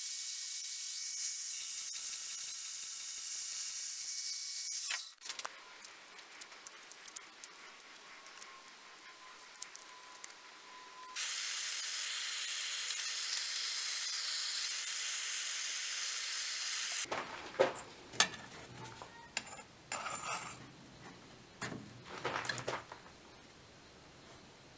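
A band saw cutting through a copper strip, a steady high hiss that stops about five seconds in. Light clicks and taps follow, then a gas torch flame hisses steadily for about six seconds as it heats the copper piece for soldering. Scattered small clicks and scrapes of hand work on the copper fitting come after.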